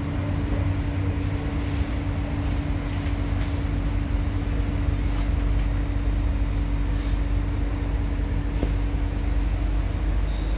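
Inside a Kawasaki–CRRC C151A metro car running into a station: a steady heavy low rumble with a constant hum, and several brief hisses scattered through the first half.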